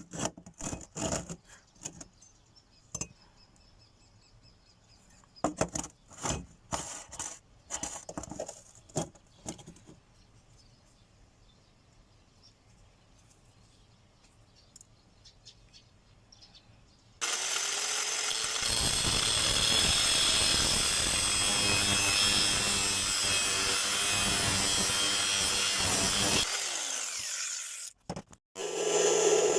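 Scattered sharp knocks and clatter, then about halfway through a power tool starts and runs steadily, loud and hissing with a whine, as it cuts into the steel of an old bearing. It stops briefly near the end and starts again.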